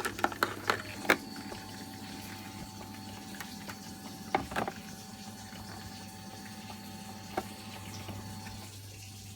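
Vaillant boiler's circulating pump running steadily on high speed, a low hum with water moving through the system. Sharp clicks and knocks of the cover and tools being handled in the first second or so, twice about four and a half seconds in, and once a little after seven seconds.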